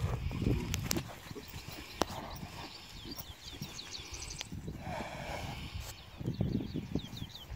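A horse's hooves thudding softly on grass turf as it trots, then slows to a stop. Birds chirp throughout, and a low rumble swells about a second in and again near the end.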